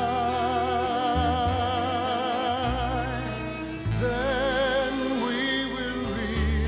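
Live worship band music: a long held melody line with vibrato over steady bass notes and acoustic guitar, moving to a new, higher phrase about four seconds in.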